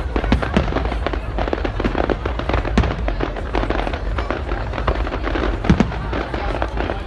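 Fireworks display going off: a dense, continuous crackle of many small cracks and pops, with a few louder bangs, one near the middle and a stronger one in the second half.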